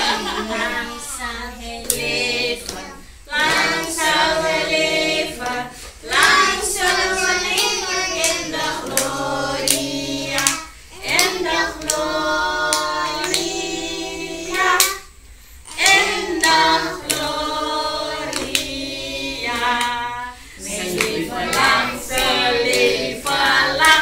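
A group of people singing a song together, with hand claps.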